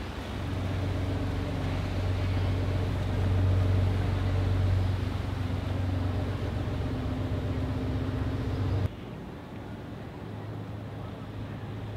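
Boat engine running with a steady low drone over wash and wind noise. About nine seconds in the sound drops suddenly to a quieter engine hum.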